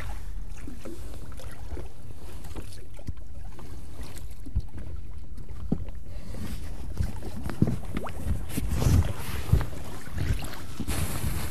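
Wind on the microphone over low water noise around an inflatable boat, with scattered knocks and rubs against the boat's rubber tube. A brief rush of noise near the end as the pike float is taken up out of the water.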